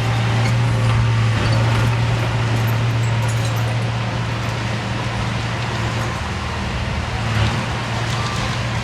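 Diesel engine of earthmoving machinery running steadily, a constant low drone under a broad rumble, with a brief knock about seven and a half seconds in.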